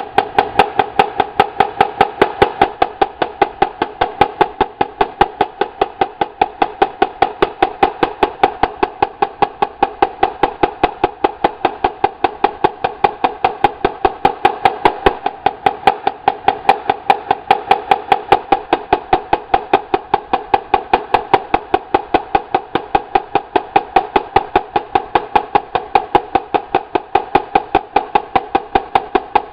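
Two marching snare drums played together: a continuous stream of fast, sharp strokes with a steady ring, and louder accented hits about three times a second.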